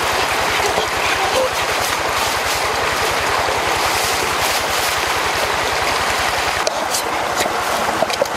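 Steady rush of a waterfall and stream, with a fast low pulsing underneath that stops near the end. A few sharp clicks come in the last couple of seconds.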